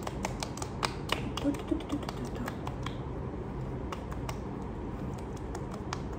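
Fingertips patting and tapping the skin of the face while applying skincare, a run of light, quick, irregular taps over a steady low room hum.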